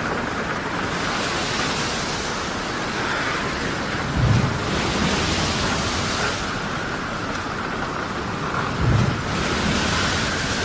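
Storm at sea: a continuous rush of wind, rain and waves that swells every few seconds, with a faint steady whistle in it and two short low booms, about four and nine seconds in.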